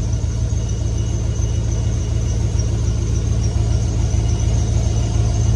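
A 6.0L LS V8 running steadily at idle, with a steady high squeal from a slipping accessory drive belt over the engine note.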